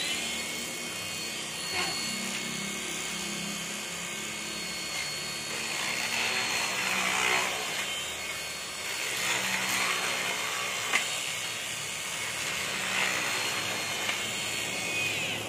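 Cordless battery sheet-metal shear running with a steady high whine, its cutting head chewing through a thin strip of sheet metal, the cutting noise swelling louder in stretches as it bites.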